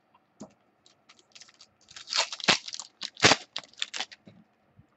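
Crinkling and crackling of plastic or foil packaging as trading cards are handled and pulled out, in a run of sharp crackles that is loudest from about two to four seconds in.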